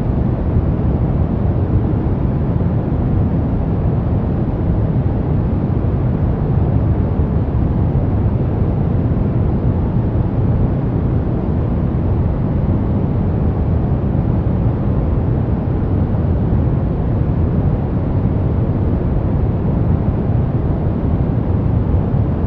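Steady synthetic brown noise: an even, deep rumbling hiss, strongest in the bass and falling away toward the treble, with no changes.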